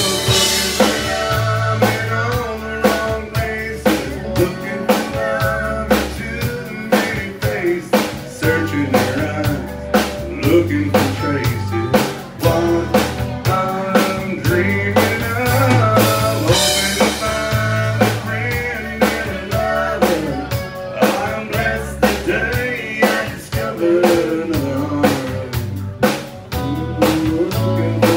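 Live country band playing a song: a steady drum beat, electric and acoustic guitars, and a man singing lead.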